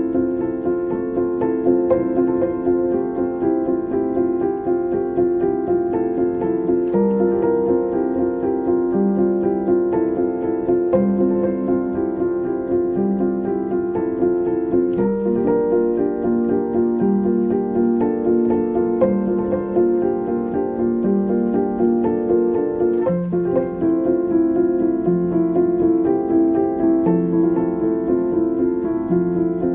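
Background music: piano-led, with held chords over a lower note that changes every second or two.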